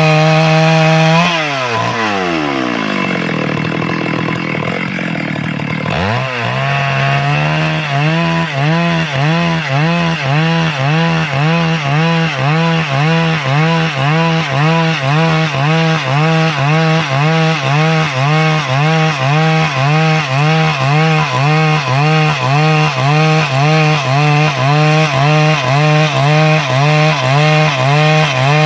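Stihl MS 382 two-stroke chainsaw cutting lengthwise through wood to make boards. About a second in, its pitch falls away and stays low for a few seconds. It then picks back up and rises and dips in a steady rhythm, a little more than once a second.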